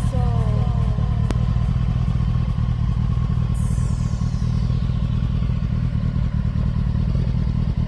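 Kawasaki ZX-10R inline-four idling steadily through its twin race exhausts, a deep, even rumble with no revving. A single sharp click about a second in.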